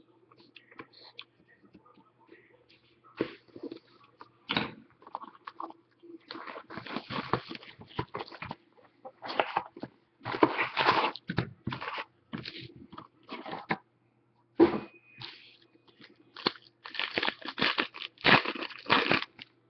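Crinkling and tearing of packaging as a box of hockey cards and its foil packs are opened. The rustling is sparse at first and grows busier and louder from about six seconds in.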